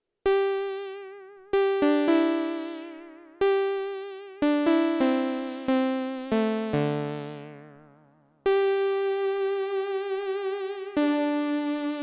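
Arturia MicroFreak synthesizer, run through a Behringer DR600 digital reverb pedal, playing a slow melody of single plucked notes, each starting sharply and fading away, with a wavering vibrato in the pitch. Near the end come two longer held notes.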